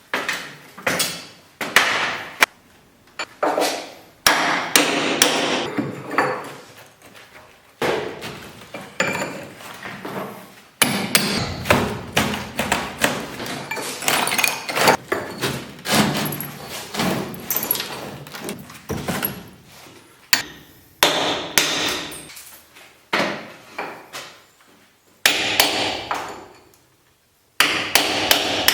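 Repeated hammer blows knocking down a built-in cupboard, with the sound cutting off abruptly a few times.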